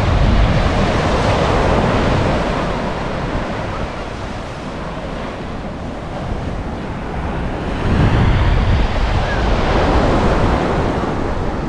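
Ocean surf washing steadily onto a beach, with wind buffeting the microphone in low rumbling gusts that get stronger about two-thirds of the way in.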